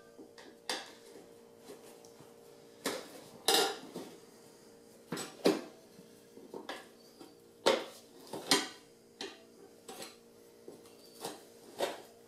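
Steel tire irons clinking and scraping against an aluminium dirt bike rim as the tyre bead is levered off the rim: irregular sharp metallic clanks, a dozen or so, the loudest a little after 3 seconds in and around 8 seconds in.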